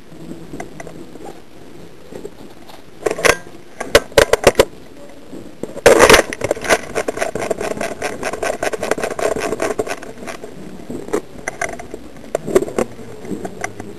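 Airsoft guns firing: a few sharp single shots, then a loud long burst of rapid, evenly spaced shots starting about six seconds in and running for around four seconds, with more scattered shots near the end.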